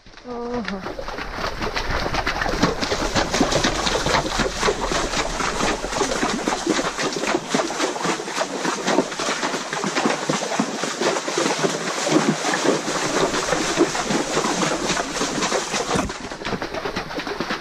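Dense, continuous rustling and crackling of ferns and branches brushing against a helmet-mounted camera as a horse is ridden along a narrow overgrown trail. A brief pitched call sounds about half a second in.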